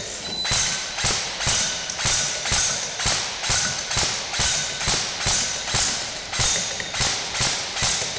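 Bolt URG airsoft electric rifle with the BRSS recoil system firing single shots in a steady string, about two a second, each with a sharp mechanical clack.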